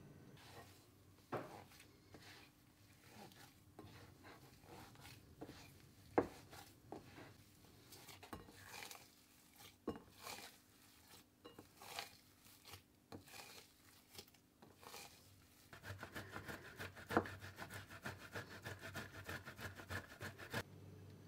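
Hands kneading mashed potato and potato starch into a dough in a ceramic bowl: soft squishing and rubbing with occasional sharp knocks. With about five seconds to go it changes to mozzarella grated on a metal box grater, a fast, even run of rasping strokes.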